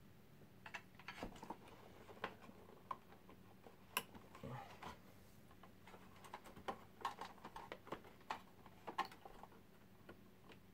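Faint, irregular small clicks and taps of cables and plastic connectors being handled and plugged into drives inside a computer case.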